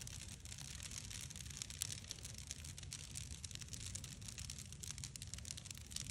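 Wood bonfire of stacked sticks burning, with a steady scatter of crackles and pops over a low rumble.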